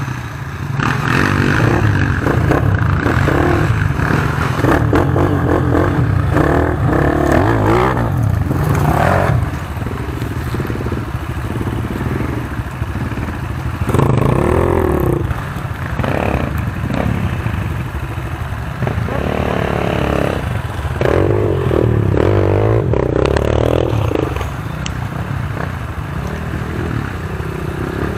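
Enduro dirt bike engine revving up and down in repeated bursts under load, as the bike is worked up a muddy creek bank and over a fallen log.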